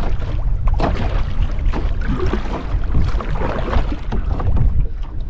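Wind buffeting the microphone over open water, with scattered knocks and splashes as duck decoys are picked up and their lines wrapped in a small boat.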